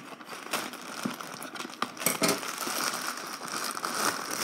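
Clear plastic bag crinkling and rustling as it is cut open with scissors and pulled off a boxed camera, with scattered sharp crackles.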